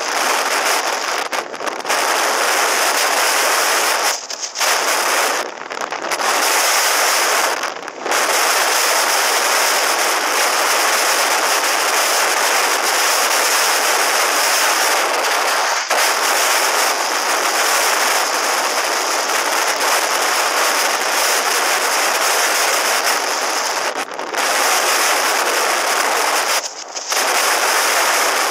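Wind rushing over the microphone of a camera on a motorcycle rider's helmet at highway speed, a loud steady crackling rush that drops away briefly about six times. No engine note stands out through it.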